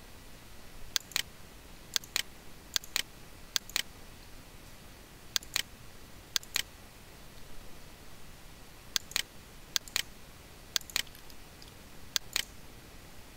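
Computer mouse clicking, mostly in quick pairs, about every second, with a pause of about two seconds midway.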